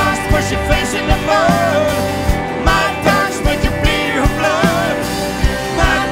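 Live rock band playing: drum kit keeping a steady beat under bass and electric guitars, with a wavering lead melody on top.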